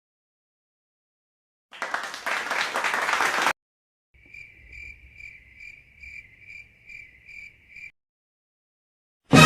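Cricket chirping sound effect: a high, evenly pulsed chirp, about three chirps a second, for nearly four seconds. It is preceded by a brief loud burst of noise, and music begins just at the end.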